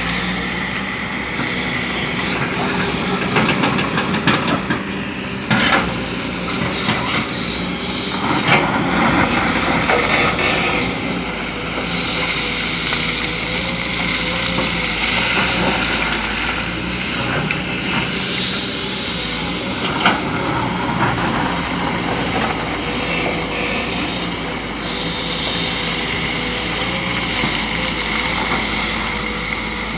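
Kobelco SK200 hydraulic excavator running steadily under load, with a steady whine, and the clanks and knocks of the bucket and machinery working: a cluster of them a few seconds in and a single sharp clank in the middle.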